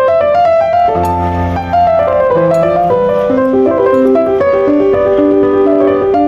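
Background music: a light piano melody with a steady accompaniment.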